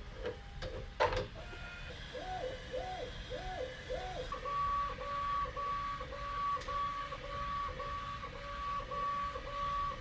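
Bambu Lab 3D printer's stepper motors whining as the toolhead moves back and forth laying down the first layer of a print. First a few notes that sweep up and down in pitch, then from about four seconds in a steady two-note whine broken into short strokes, about two or three a second, as the head reverses at the end of each line.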